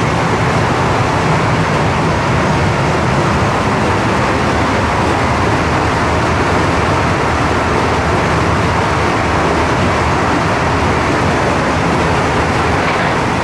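Steady rushing rolling noise of a locomotive-hauled Interregio-Express train running at speed, made up of former Interregio coaches behind a Siemens ES64U2 Taurus electric locomotive.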